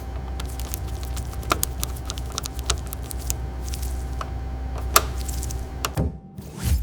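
Steady low machine hum with irregular sharp clicks and knocks scattered through it; one knock about five seconds in is louder than the rest.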